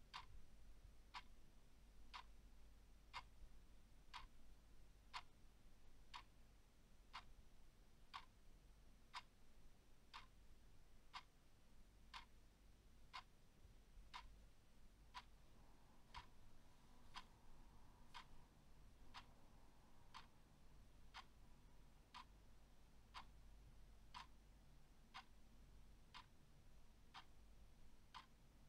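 Clock ticking quietly and evenly, about once a second, over a faint low hum.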